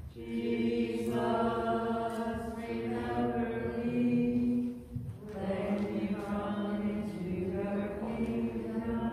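Slow sung chant or hymn, long notes held in phrases, with a short pause for breath about five seconds in.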